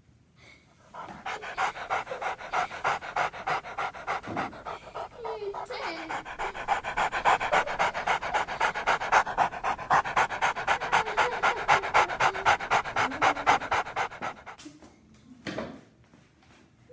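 Dog panting fast and steadily, about four pants a second, stopping shortly before the end. A short knock follows near the end.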